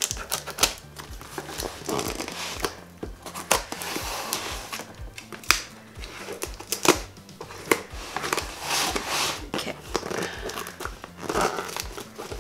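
Scissors snipping through packing tape and paper labels on a cardboard box, with crinkling of the tape and sharp clicks of the blades. Background music with a steady bass beat plays underneath.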